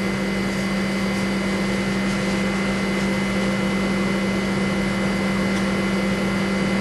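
Steady background hum with a strong constant low tone and fainter tones above it over an even hiss, unchanging throughout.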